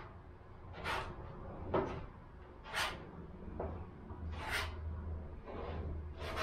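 Spreader scraping freshly mixed Bondo body filler across a steel car body panel in short strokes, about one every second or two. A low steady hum runs underneath.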